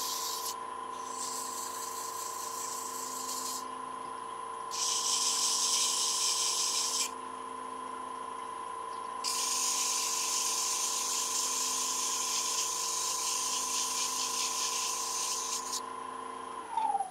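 Wood lathe running with a steady motor whine while sandpaper is pressed against the spinning oak pen blank. The sanding hiss comes and goes in several stretches. Near the end the lathe is switched off and its whine falls in pitch as it spins down.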